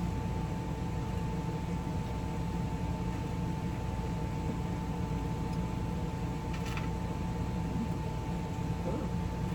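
Steady machine hum with a thin constant whine, like a fan or appliance motor running, and a single small click about seven seconds in.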